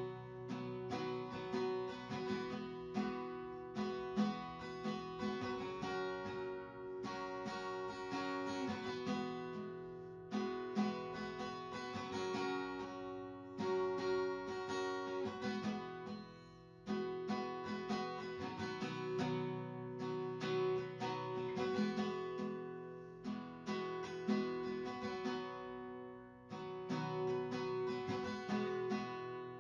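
Background music led by acoustic guitar, strummed and picked in a steady rhythm.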